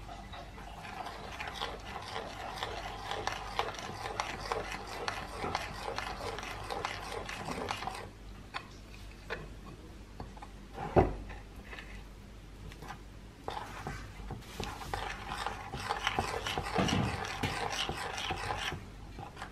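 A metal spoon stirring and scraping in a ceramic bowl, working flour into a thick chocolate batter in quick repeated strokes. The stirring pauses in the middle, broken by a single sharp knock, then resumes.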